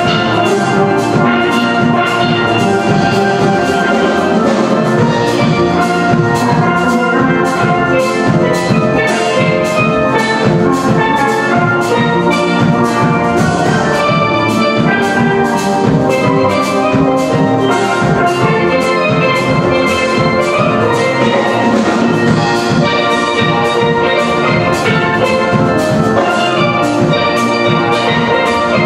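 Steel band playing a calypso: many steel pans of different ranges striking fast, overlapping melody and chord notes over drum kit and hand percussion, at a steady quick beat.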